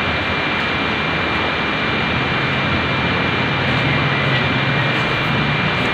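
Steady rushing background noise with a faint constant high whine; a low hum joins about two seconds in.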